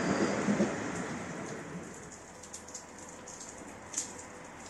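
A departing train's rumble fades away over the first two seconds or so. Light rain then patters and drips on the wet platform, with one sharper drip about four seconds in.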